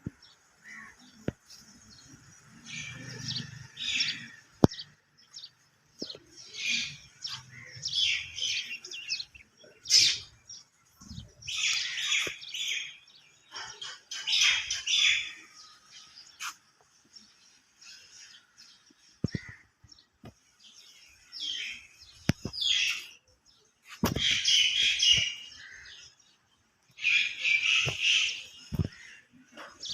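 Small birds chirping in bursts of rapid high notes, a fresh burst every few seconds, with a few sharp clicks or knocks in between.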